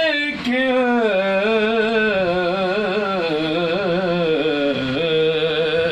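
A man singing an Urdu naat solo, drawing out one long ornamented note without words, its pitch wavering and slowly falling.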